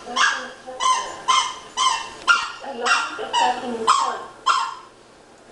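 Dogs barking in a steady run of sharp barks, about two a second, that stops shortly before the end.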